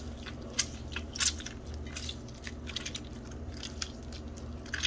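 Half a lemon squeezed by hand over asparagus: wet squishing and crackling with scattered sharp clicks, the loudest a little over a second in.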